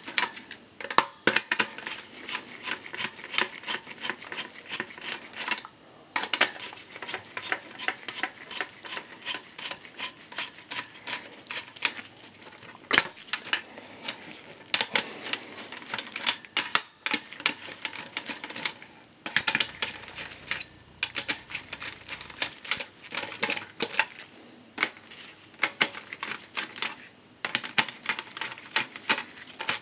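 A Phillips screwdriver is backing out the screws that hold a CPU heatsink-and-fan cooler to a motherboard, making rapid runs of small clicks and rattles with a few short pauses. The cooler's metal and plastic knock as it is worked loose and handled.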